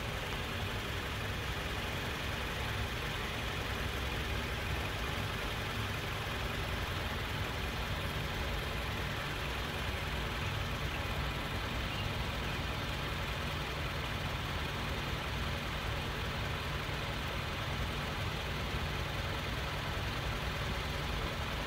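A steady, unchanging low engine hum, like a car idling, with no bird calls heard.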